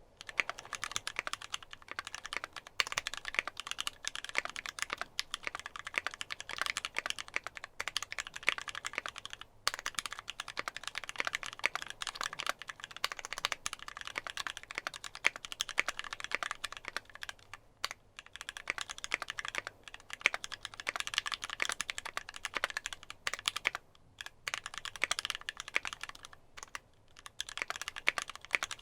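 Steady typing on a custom mechanical keyboard with lubed Gateron Ink linear switches, GMK keycaps, an aluminium plate and a Tofu case: a dense run of keystrokes broken by a few brief pauses.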